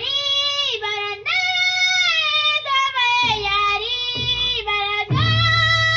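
A high voice singing long, wavering notes over backing music, with low beats coming in about halfway through.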